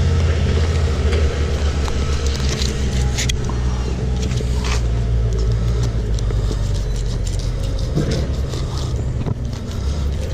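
Steady low mechanical hum, like a nearby motor running, with a few faint scrapes of a fillet knife cutting along a tripletail's back.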